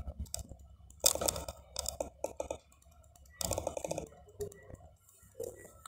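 A whiteboard eraser handled against the board: a few short bursts of rapid clicking and rubbing, about a second apart at first, then a longer one later on.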